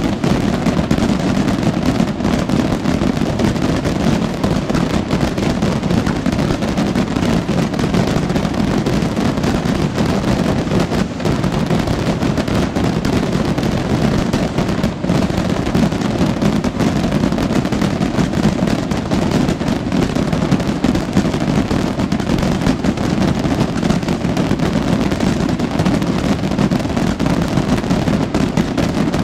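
Massed firework rockets (voladores) exploding in a dense, unbroken barrage, the bangs running together into a continuous loud rumble.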